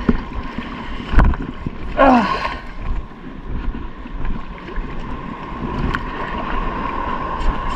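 Water sloshing and wind on the camera as an angler wades in the sea, with a sharp click about a second in. From about three seconds in comes a steady whir as the spinning reel is wound in.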